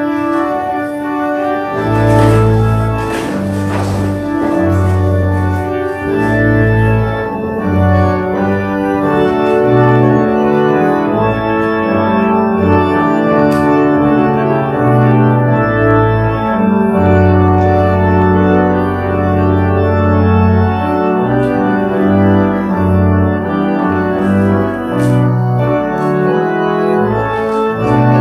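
Church organ playing slow, sustained chords over low bass notes that change every second or two.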